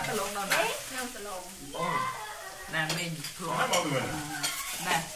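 People talking quietly, the words unclear, over a steady hiss.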